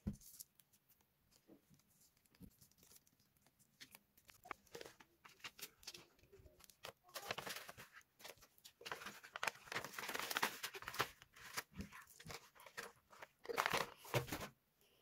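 Sheets of paper rustling and crinkling as a hand-coloured paper doll and a folded paper booklet are handled, folded and turned over. Irregular crackles and soft clicks, busiest a few seconds into the middle and again near the end.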